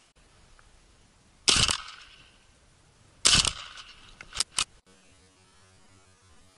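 Two shotgun shots from an Akdaş 212 S, about two seconds apart, each dying away briefly, followed by two sharp clicks. A faint steady hum comes in near the end.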